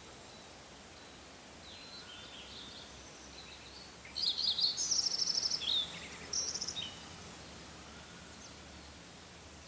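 Songbirds singing: faint high chirps, then a loud burst of song about four seconds in that runs into a rapid, high trill, and a shorter trilled phrase soon after.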